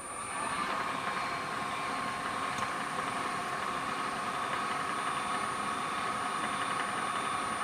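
Milling machine spindle running with the end mill free and not yet cutting: the motor comes up to speed in the first half second, then runs on steadily with a whine.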